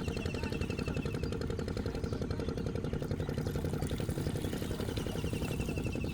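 An engine running steadily with a rapid, even knocking beat and a low hum. A brief high chirp sounds near the start and again near the end.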